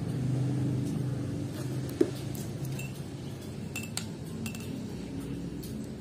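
Steel ruler clinking and tapping against a badminton racket's shaft and grip while it is laid alongside to measure the balance point: one sharp click about two seconds in, then a few lighter ticks a couple of seconds later, over a low background drone.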